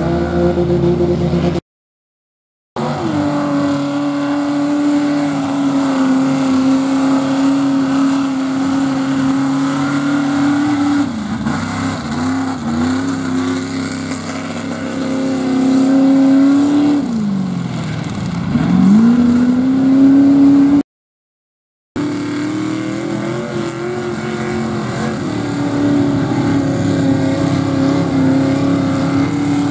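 Lifted Chevrolet S-10 mud truck's engine held at high revs while its big tires spin through mud and sand, the revs dropping and climbing back a couple of times. The sound cuts out briefly twice, about two seconds in and about two-thirds of the way through.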